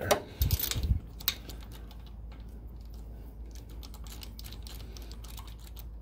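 Sharp clicks and knocks of hand tools and spark plugs being handled during a spark plug change, bunched in the first second, then scattered faint ticks over a steady low hum.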